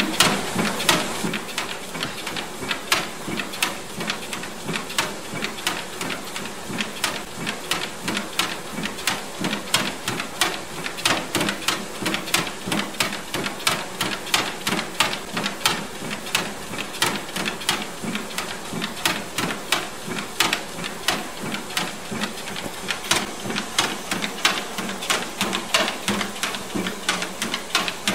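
Bremshe motorized treadmill running with a steady motor hum, while a German Shepherd's feet tap the moving belt in an even rhythm of about two to three sharp clicks a second.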